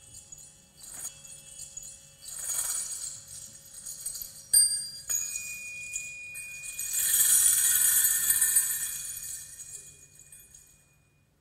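Stage sound score of shimmering, jingling bell-like tones that come in swells over a few held tones. There is a sharp click about four and a half seconds in, and the biggest swell comes a little past the middle before it fades out near the end.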